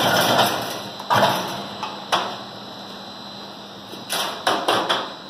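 Chain link fence machine's motor running, then winding down and stopping about half a second in. Sharp knocks follow as the machine is handled: one about a second in, one about two seconds in, and a quick cluster of four near the end.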